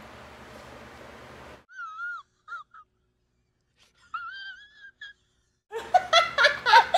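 An inserted meme sound effect: a man's high-pitched wheezing whimper in two brief wavering bouts over dead silence. Near the end two people break into loud laughter.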